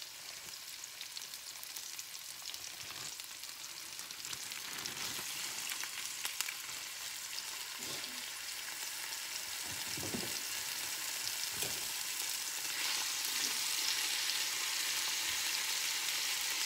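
Sliced bell peppers and onions sizzling in a cast-iron skillet. The sizzle grows steadily louder from about five seconds in as raw marinated steak strips go into the hot pan, with a few soft knocks as the meat is laid in and moved with tongs.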